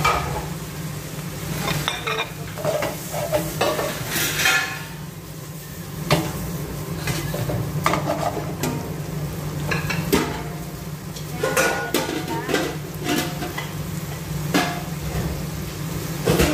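Shrimp and vegetables sizzling in a nonstick frying pan as they are stirred, with scraping and now and then a sharp knock of the utensil against the pan. A steady low hum runs underneath.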